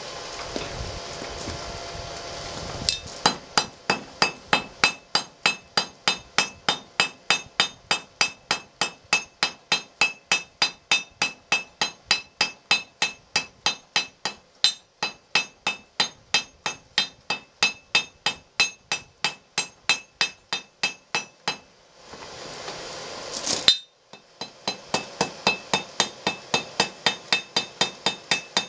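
Hand hammer striking hot 3/8-inch rebar on an anvil in an even run of about three ringing blows a second, drawing out a point. A steady rushing hiss comes before the hammering starts a few seconds in. Near the end there is a short break where a hiss swells and cuts off, then the blows resume.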